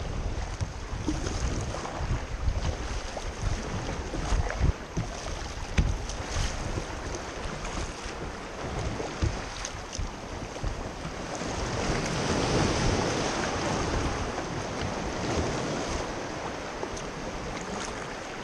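Sea kayak paddling in choppy water: paddle strokes splashing and sea water sloshing around the hull, with wind buffeting the microphone. About twelve seconds in, a rushing wash of water swells up and fades.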